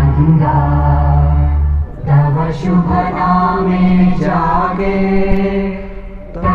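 Slow song sung by many voices with music behind it, its notes long and held over a steady low drone, dropping briefly between phrases about two seconds in and again near the end.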